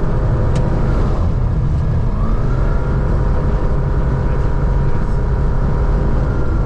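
Grob G109B motorglider's Rotax 912 flat-four engine and constant-speed propeller running steadily, heard from inside the cockpit. The engine note dips briefly about a second in and comes back up.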